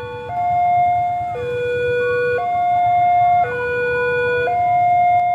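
Railway level-crossing warning alarm sounding an electronic two-tone signal, a low note and a high note taking turns about once a second, warning of an approaching train. A low rumble lies beneath it.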